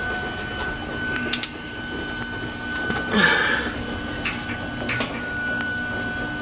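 Steady electrical hum and whine of shop equipment running in a garage, with a short hissing burst about three seconds in and a couple of sharp clicks.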